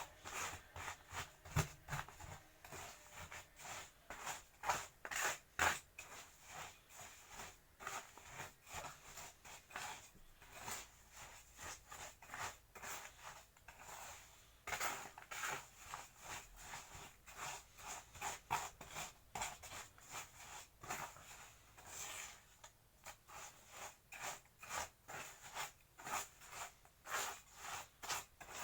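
Fallen earthen-wall soil being mixed with water into mud for reuse: repeated short, wet scraping and squelching strokes, roughly two to three a second.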